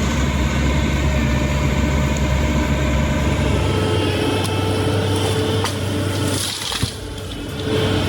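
Heavy machinery's engine running steadily, with its deep low hum fading about four seconds in. Near the end a burst of hiss and a sharp crack come before a brief quieter spell.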